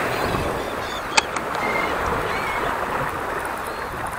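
Steady rush of sea water and wind along a small boat's hull, with a single sharp click about a second in.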